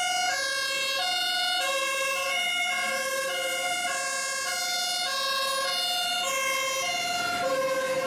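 German fire engine's two-tone siren (Martinshorn) sounding on an emergency run: a high and a low note alternating steadily, a little over a second per high-low cycle.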